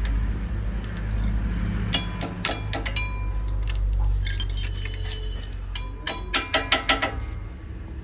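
Thin metal brake-pad clips clinking and ringing as they are handled and pressed into place on a brake caliper bracket, in three clusters of sharp metallic clicks about two, four and six seconds in, over a steady low hum.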